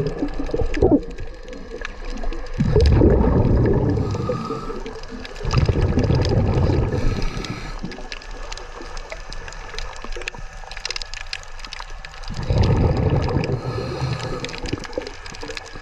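Underwater, a scuba diver's exhaled breath bubbling out in loud, low gurgling bursts a few seconds apart.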